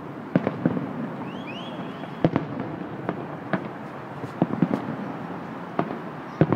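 Aerial firework shells bursting: about nine sharp bangs at uneven intervals over a steady background noise, with two short rising whistles about a second and a half in.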